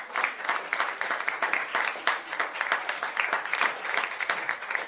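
Audience applauding: many hands clapping in a dense, steady mass.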